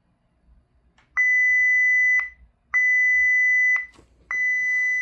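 Volkswagen New Beetle instrument cluster's warning buzzer sounding three long, steady, high-pitched beeps of about a second each, about a second and a half apart.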